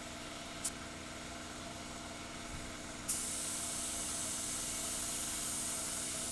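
Compressed-air spray gun spraying primer: a short hiss under a second in, then steady hissing from about halfway through. Under it runs the steady hum of the air compressor.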